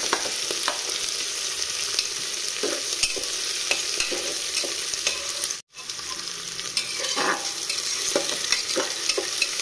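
Sliced onions and green chillies sizzling in hot mustard oil in an aluminium pressure cooker, with a metal spatula scraping and clicking against the pot as they are stirred. The sound cuts out for an instant just past halfway.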